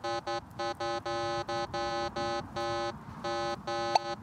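Minelab Manticore metal detector giving a repeated target tone, steady buzzy beeps at about two a second, as the coil is wiggled over the test target with the stabilizer set to five. A sharp click comes near the end.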